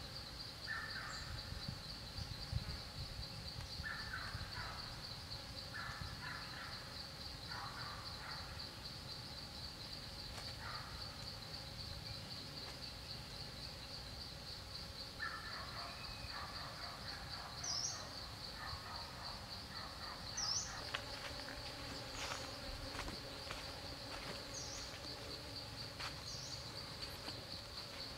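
Woodland ambience: a steady, high, pulsing insect drone, with bird calls in short groups every few seconds and brief high chirps in the second half.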